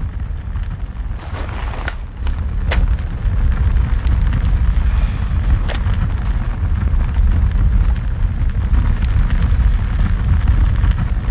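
A fire burning with a dense, low rumble and a few sharp crackles. It grows louder about two seconds in.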